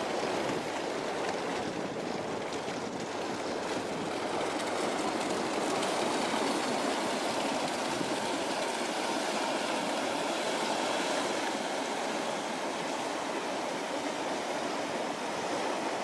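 Inland motor cargo barge passing close by on the canal: a steady rushing rumble of its engine and the water it pushes along its hull, swelling slightly as it draws level.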